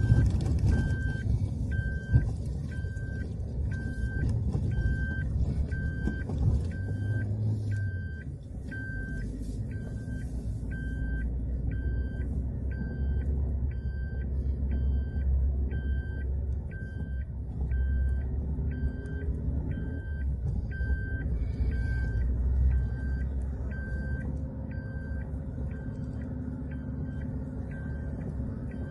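Suzuki Jimny's seat-belt warning chime beeping steadily, about three beeps every two seconds, for an unfastened belt, over the low rumble of the car driving.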